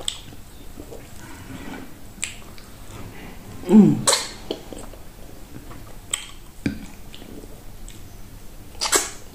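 Close-up mouth sounds of eating fufu with slimy okra soup by hand: wet lip smacks and clicks a few times, and a louder slurp with a short falling hum about four seconds in as a handful goes into the mouth.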